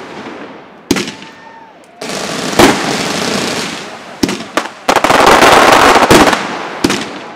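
Fireworks display: a sharp bang about a second in, then from about two seconds a long, loud hissing crackle of rising stars, broken by several more bangs and loudest around five to six seconds.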